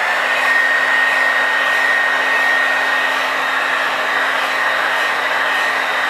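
Old Revlon hair dryer with a brushed motor running: a steady rush of air with a high whine that rises a little in pitch as it comes up to speed at the start, then holds steady.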